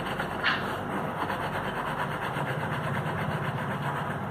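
Glass baking dish of cake batter being rapidly shaken and tapped on a stone countertop to level the batter: a steady, fast rattle, with a sharper knock about half a second in.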